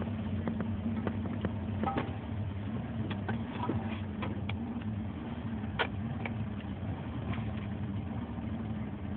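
Bass boat's outboard motor running with a steady hum, with scattered clicks and knocks over it.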